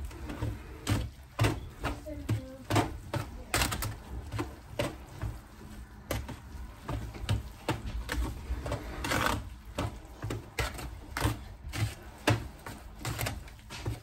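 Metal spoon stirring crumbly cornmeal dressing in a disposable aluminium foil pan, scraping and knocking against the foil in irregular strokes about one or two a second, with a longer scrape about nine seconds in.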